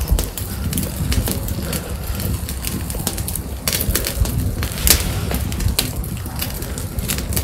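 Wood fire crackling and popping under a wire grill of fish, with many short sharp snaps over a low steady rumble of the flames.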